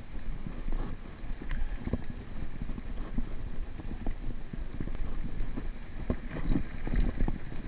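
Mountain bike rolling over a dirt trail: a steady low rumble from the tyres and wind, with frequent irregular knocks and rattles as the bike jolts over bumps.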